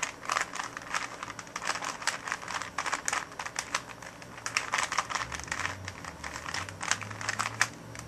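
Plastic 3x3x3 Rubik's cube being twisted by hand: an irregular run of quick clicks and rattles from its turning layers, several a second.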